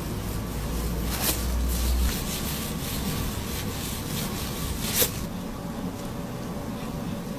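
Gloved fingertips rubbing and scratching through hair against the scalp in a quick run of soft, scratchy strokes. A sharper click comes about five seconds in.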